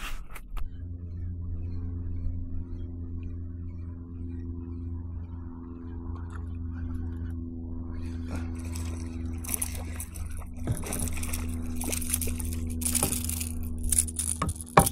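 A boat motor running steadily at an even pitch as the kayak moves across the water. From about halfway on, a rushing, splashing noise of water or wind is added.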